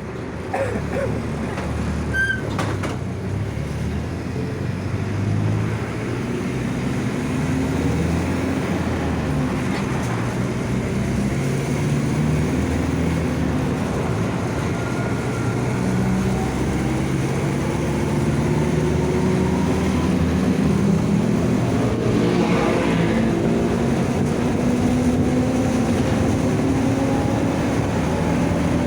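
Mercedes-Benz OF-1722M bus engine and drivetrain running under way, with the differential growling. Over roughly the last ten seconds the engine and gear whine rise steadily in pitch and grow louder as the bus gathers speed.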